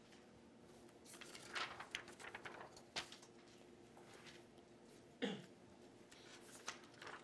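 Quiet room with a faint steady hum, broken by soft rustles and clicks of handling, mostly between one and three seconds in, and one short sharp sound just after five seconds.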